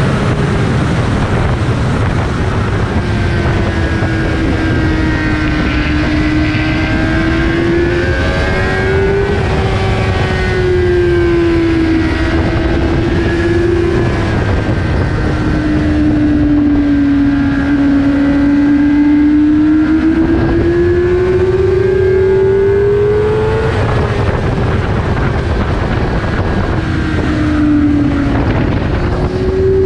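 Suzuki GSX-R 600 inline-four with an Akrapovic full exhaust running hard at high revs on track, its engine note rising and falling in long, slow sweeps, under heavy wind rush.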